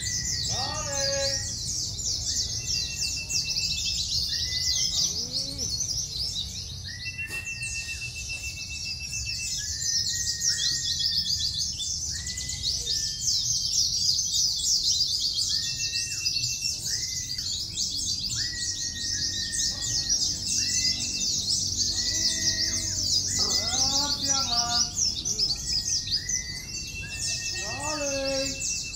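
Many caged white-eyes (pleci) singing at once in a songbird contest: a dense, rapid, high-pitched twittering that never lets up, with shorter whistles and trills recurring beneath it.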